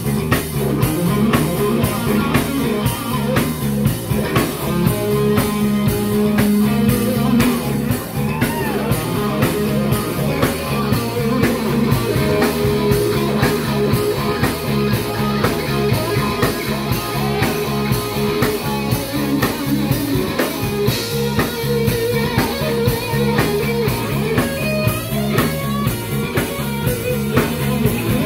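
Live rock band playing loudly: electric guitar and a drum kit keeping a steady, regular beat.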